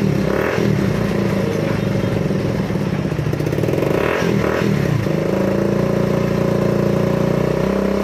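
Bajaj Pulsar NS160 FI's single-cylinder engine running steadily at idle, with brief throttle blips about half a second in and again around four seconds in. It is running without a push start, its hard-starting fault cured after a starter-motor repair.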